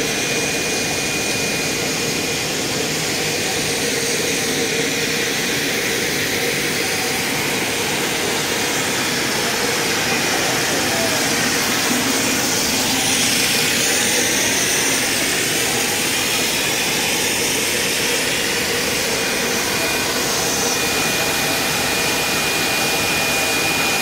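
An EVA/LLDPE vacuum-cleaner hose extrusion line running: the extruder and winding machine's motors and gearboxes give a steady mechanical hum and hiss, with a thin high whine that is clearest near the start and the end.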